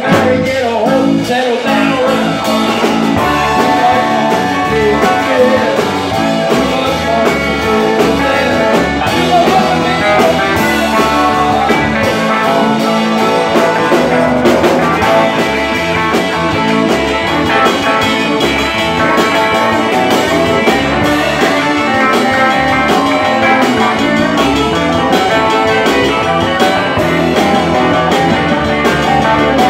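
Live rock-and-roll band playing loud and steady, electric guitars over a driving beat.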